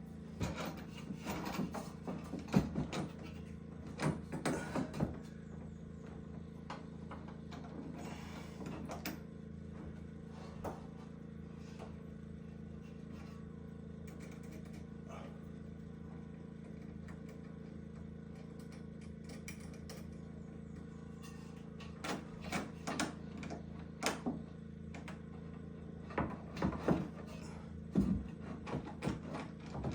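Scattered knocks, clunks and clatter of things being handled, in two spells near the start and near the end, over a steady low hum.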